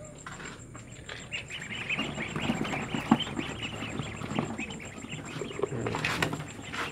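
A brood of young ducklings, two to three weeks old, peeping in a dense overlapping chorus as they crowd onto freshly put-down fermented feed, starting about a second in, with a few sharp taps of bills pecking at the feed.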